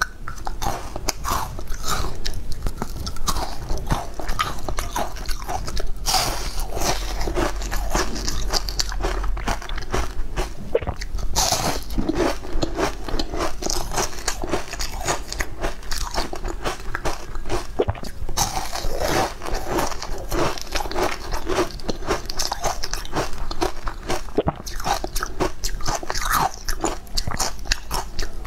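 Close-miked crunching and chewing as a person bites into a crisp, lattice-shaped snack coated in green powder, with dense crackly crunches throughout.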